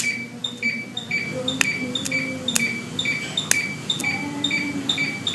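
Handheld pigment-removal pen beeping steadily while its tip is worked on the skin, alternating a lower and a higher tone about four times a second, with a few sharp clicks over the beeps.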